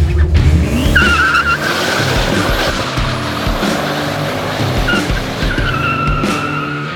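Chevrolet Camaro SS's LS3 V8 revving hard in a burnout, the rear tyres spinning and squealing in two long spells, about a second in and again near the end.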